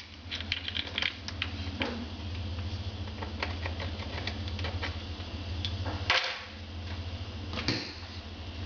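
Light irregular clicks and taps of hands handling and positioning small metal L brackets and screws against the underside of a benchtop, with two louder knocks about six and seven and a half seconds in.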